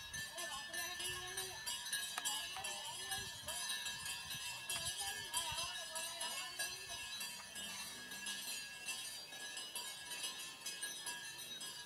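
Bells on a herd of walking cattle jingling and clinking steadily, with people's voices wavering in the background.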